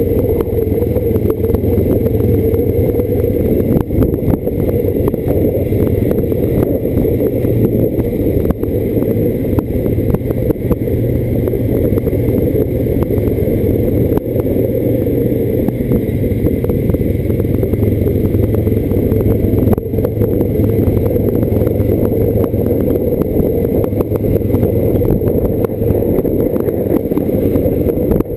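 ATV engine running steadily at cruising speed, heard on board, with short knocks and rattles from the machine bouncing over a rough dirt road.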